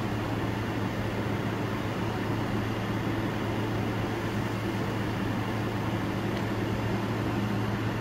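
Steady low hum under a constant hiss, with no distinct events.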